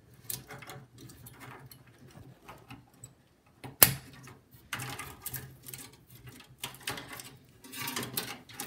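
Small clicks and scrapes of a CPU heatsink being handled and fitted back onto a motherboard, with one sharp click about four seconds in.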